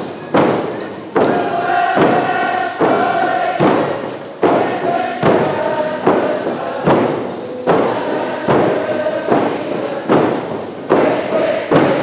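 Many frame drums struck together in a steady beat, a little more than one beat a second, under a group of voices singing a chant.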